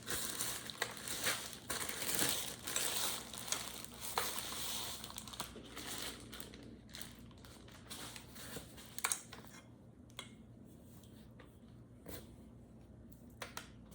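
Packaging crinkling and rustling as it is handled during unpacking, with many small clicks and taps. It is busiest in the first half, then thins out to scattered taps, with a couple of sharper ticks near the end.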